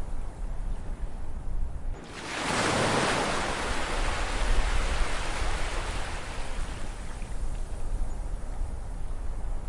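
Ocean waves: about two seconds in, a wave breaks with a sudden rush of surf that slowly washes out and fades over the next few seconds, over a steady low rumble.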